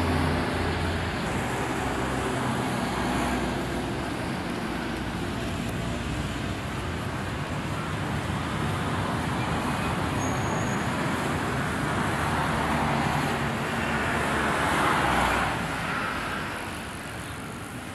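Road traffic: cars driving past on the street, one passing close and loudest about three quarters of the way through, swelling and then fading away.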